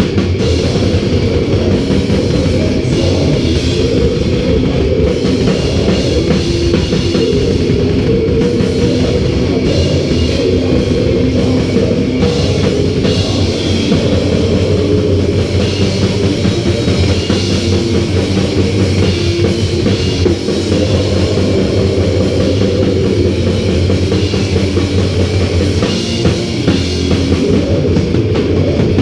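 Heavy metal band playing live: distorted guitars over a drum kit, loud and unbroken.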